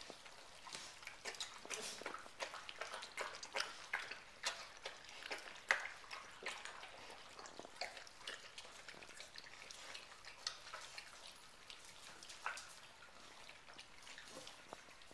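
Gordon setter puppies lapping and licking at stainless steel bowls: a quick, irregular run of small wet clicks, busiest in the first half and thinning out later.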